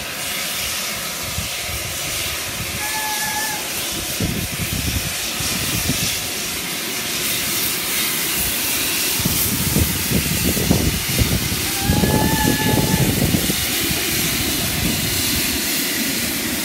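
Loud, steady hiss of escaping steam from the GWR Modified Hall 4-6-0 steam locomotive 6990 Witherslack Hall. A lower rumble swells twice, and two brief faint whistle tones sound about three seconds in and again near twelve seconds.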